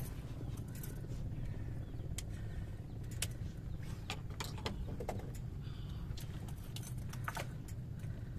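Scattered light clicks and knocks of fishing gear being handled in a wooden boat, coming irregularly over a steady low rumble.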